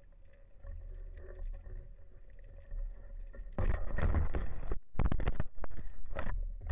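Muffled underwater rumble heard through a diver's camera housing. About three and a half seconds in, loud, choppy bursts of water noise start as the spearfisher reaches the surface: splashing and bubbling around the camera, with short breaks between the bursts.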